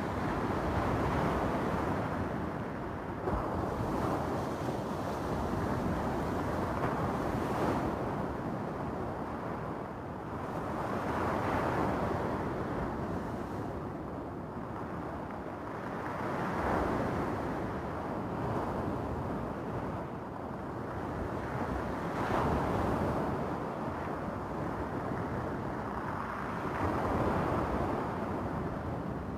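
Small waves breaking and washing up a stony beach, the surf swelling and falling back every few seconds, with wind buffeting the microphone.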